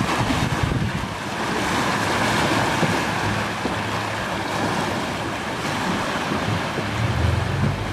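Wind buffeting the microphone over the rush of swirling, churning water beside a rigid inflatable boat, with the boat's engine humming low underneath and getting louder near the end.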